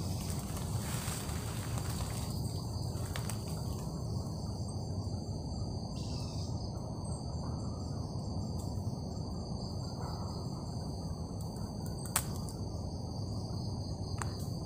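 Insects chorusing in the forest: a steady high-pitched drone that holds unbroken, over a low, even rumble. A short falling whistle comes about six seconds in, and a single sharp click about twelve seconds in.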